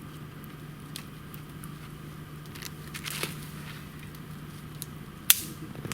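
Campfire crackling, with scattered small pops and one sharp, loud pop about five seconds in.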